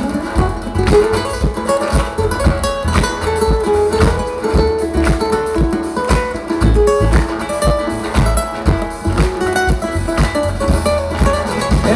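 Live acoustic band music: a picked melody on acoustic guitar and ukuleles over strummed chords and a steady bass pulse, with no singing.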